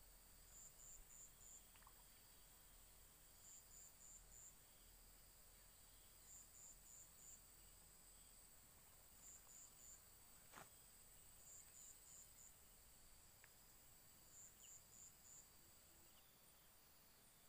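Faint chorus of insects: a steady high drone, with a short run of three or four quick chirps repeating about every three seconds. A single faint click about ten seconds in.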